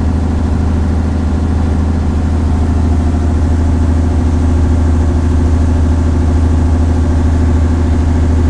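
Small motorboat's engine running steadily underway, a loud, even low drone that grows slightly louder about three seconds in.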